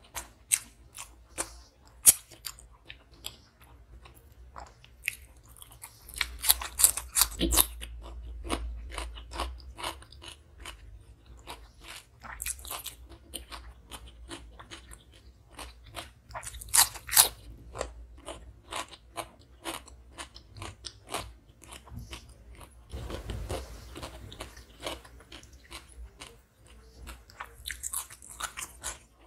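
Close-miked chewing and biting of crunchy food, including raw cucumber: many sharp crisp crunches with wet chewing between them, loudest in clusters around six to eight seconds in and again around seventeen seconds.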